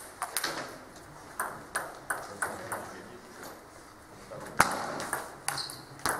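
Celluloid-type table tennis ball clicking off the table and the rubber-faced bats: a run of light, evenly spaced pings, then the sharpest hit about four and a half seconds in as a rally gets going.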